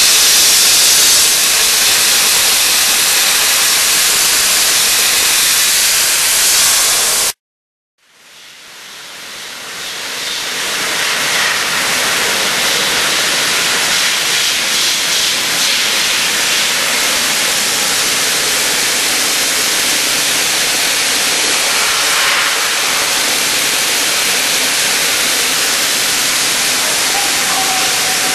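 Dry ice blaster nozzle spraying: a loud, steady hiss of compressed air and dry ice pellets blasting chewing gum off a subway car's metal floor plate. The hiss cuts off abruptly about seven seconds in, then fades back up and runs on steadily.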